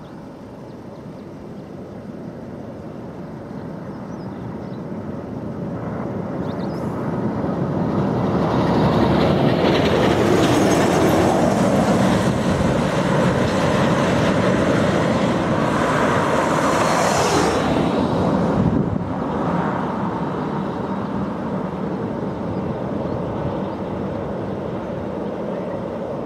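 Broad noise of a passing vehicle, growing louder over the first nine seconds or so, staying loud, then easing off after about eighteen seconds.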